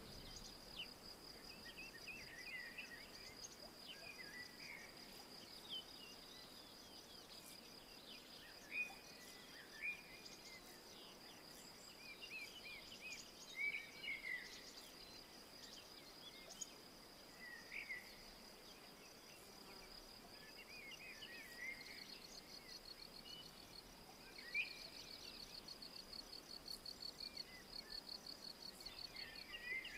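Faint woodland ambience: an insect's continuous high-pitched trill, breaking into rapid pulses near the end, with scattered short bird chirps and calls.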